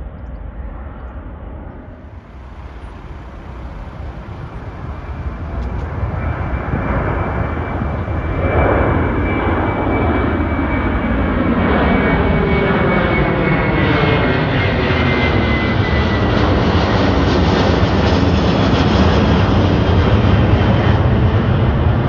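Delta Air Lines Airbus A330's twin jet engines at takeoff power as it climbs out overhead. The sound grows louder over the first several seconds, then holds loud, with a high whine gliding slowly down in pitch.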